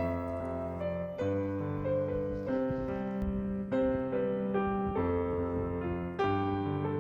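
Background piano music, slow chords, with a new chord struck about every second and a bit.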